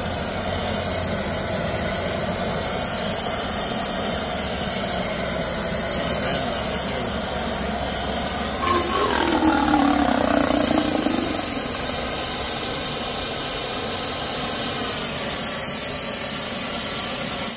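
Oxy-acetylene torch flame running with a steady hiss as it heats a copper rod to a dull red to anneal it. The hiss gets a little louder and brighter about halfway through.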